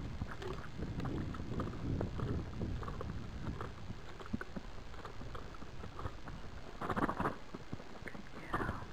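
Hoofbeats of a gaited horse moving along a sandy track: soft, quick, irregular footfalls, with wind rumbling on the microphone. A brief louder rushing sound comes about seven seconds in.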